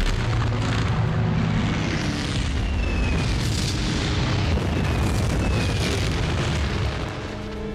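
Continuous heavy rumbling of battle explosions, with a few faint falling whistles over it. The rumble eases near the end.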